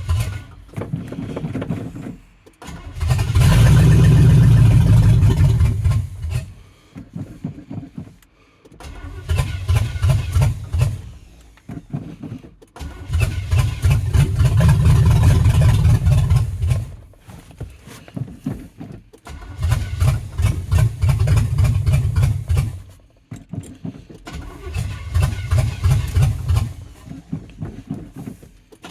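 Chevy 305 small-block V8 being cranked by its starter in several separate attempts, each a few seconds long with gaps between, without staying running: hard starting.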